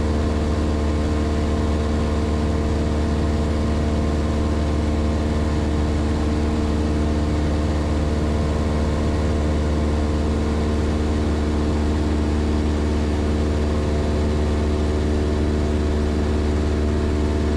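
Cessna 172's piston engine and propeller droning steadily in the cabin during the climb.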